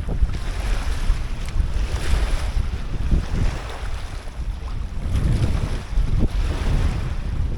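Strong wind buffeting the microphone, a loud, gusting rumble, with waves washing behind it.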